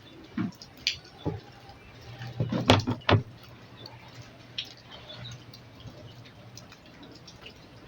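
Tools and parts being handled on a repair bench: scattered small knocks and clicks, with a cluster of sharper knocks about two and a half to three seconds in, over a faint steady low hum.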